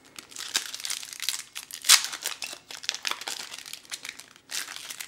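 Foil wrapper of a Flesh and Blood Tales of Aria booster pack crinkling and crackling as it is torn open by hand, with a sharp rip about two seconds in and a brief lull near the end.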